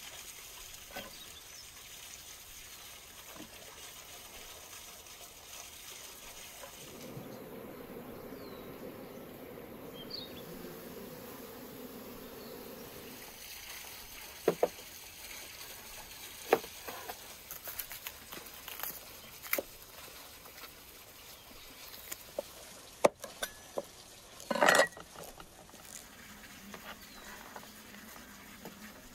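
Garlic being cut and broken into cloves on a wooden cutting board with a large kitchen knife: scattered sharp knife taps and clicks, the loudest a short scrape about 25 seconds in. Underneath is a quiet outdoor background, with an insect buzzing for about six seconds in the first half.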